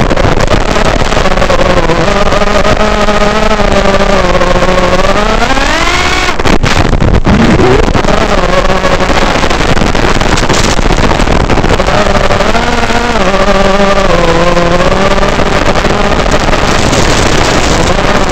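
Realacc X210 quadcopter's brushless motors and propellers whining, the pitch rising and falling with the throttle, with a steep climb about six seconds in. A rushing haze of air noise runs underneath.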